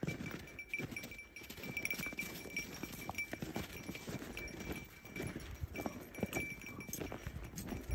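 Footsteps crunching in packed snow at a steady walking pace.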